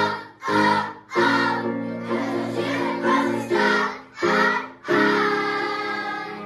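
A class of young schoolchildren singing together in unison, in short phrases with quick breaths between them, ending on a long held note that fades away near the end.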